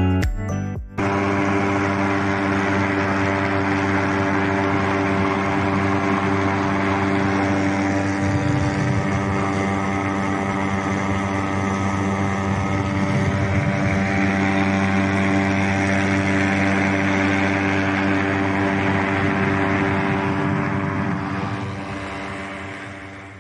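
Ultralight aircraft's engine and propeller running at a steady pitch, with wind rushing past the open aircraft; it fades out near the end.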